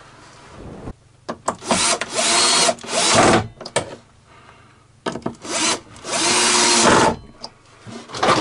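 Cordless drill-driver driving screws to mount a part back in place, in two runs of about two seconds each with short trigger blips around them.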